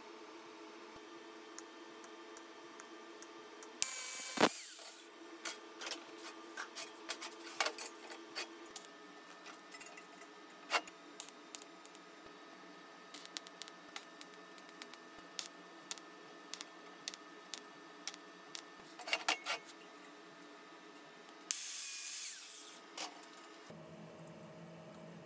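Two short TIG tack welds, each about a second of noisy arc, about four seconds in and again near the end, fixing a stainless wire-mesh grill to a small steel stove body. Between them come light clinks and ticks of the mesh and metal being handled, over a steady low hum.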